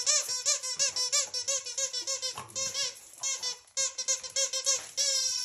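Squeaker inside a large plush carrot dog toy being squeezed over and over: quick high squeaks, several a second, with a couple of short breaks.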